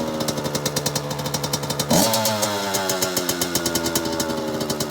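Dirt bike engine running just after a cold start, still warming up. It is revved once sharply about two seconds in, and the revs then sink slowly back toward idle.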